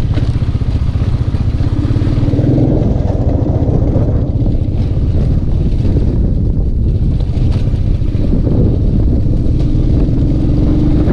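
Royal Enfield single-cylinder motorcycle engine running steadily while riding, with wind buffeting the microphone.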